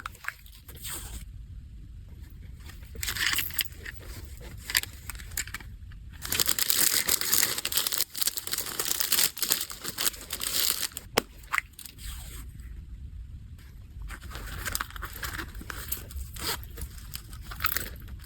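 Packaging being handled: paper or plastic wrapping crinkling and tearing in irregular bursts, busiest in a long stretch in the middle, with one sharp click partway through.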